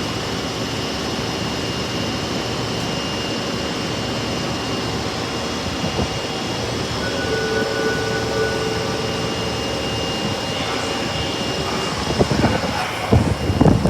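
Osaka Metro Tanimachi Line subway train's steady mechanical hum and hiss, with a few faint steady tones over it, turning louder and uneven in the last couple of seconds.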